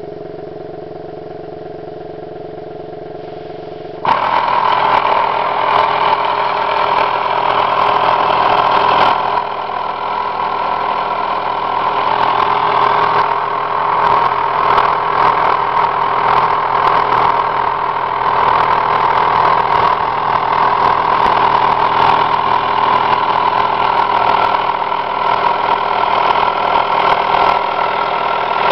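The small engine of a CK toy steam boat running on compressed air instead of steam: after a few seconds of steady humming, it picks up abruptly about four seconds in and runs fast and busily, with rapid ticking and hiss, steady to the end.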